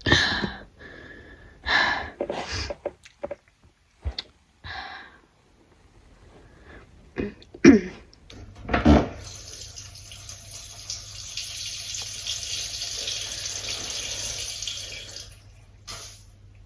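A person urinating: a steady stream of liquid splashing for about seven seconds, then tapering off near the end. Before it come several short vocal and breath sounds, the loudest just before the stream starts.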